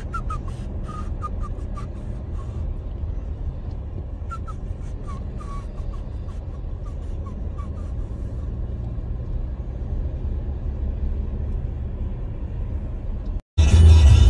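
Steady low road and engine rumble of a moving car, heard from inside, with a scattering of faint short chirps and ticks in the first half. Near the end the sound cuts out for a moment and loud music starts.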